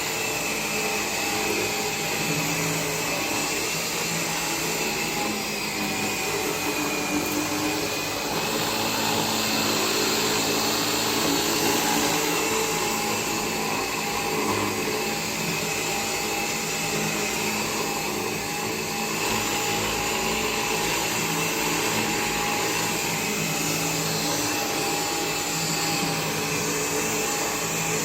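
Bissell Air Ram cordless stick vacuum running steadily: an even motor whine over a rush of air, with no change in speed.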